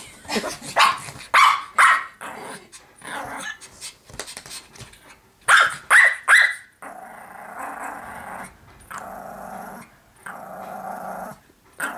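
Small dog barking at a plush toy dog in short sharp barks, then growling in long stretches from about seven seconds in.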